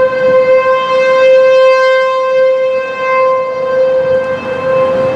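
Fulton T-128 outdoor warning siren sounding a steady, single-pitched tone for a tornado warning. It is louder around a second or two in and eases off somewhat toward the end.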